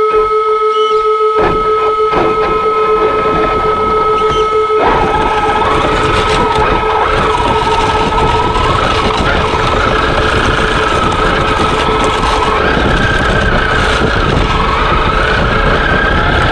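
Traxxas X-Maxx RC truck's electric drive whining, heard from a camera mounted on the truck. About five seconds in it turns into a thick, noisy churn as the plow blade pushes through snow, and the motor whine rises and falls with the throttle.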